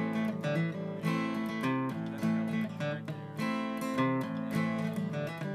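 Background music: a strummed acoustic guitar playing a steady, rhythmic run of chords.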